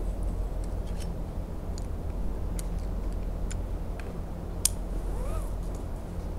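A low steady rumble with scattered sharp clicks and taps, the loudest about two-thirds of the way through, then a short rising-and-falling chirp near the end.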